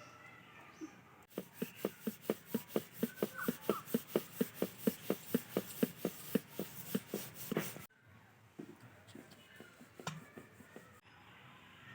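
Wooden rolling pin working naan dough on a wooden board, knocking rhythmically about four to five times a second. It stops abruptly after about eight seconds, and a few scattered light knocks follow.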